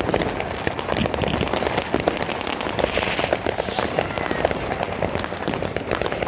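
Many fireworks going off at once: dense, continuous crackling and banging of firecrackers and rockets, with a high whistle in the first second or so.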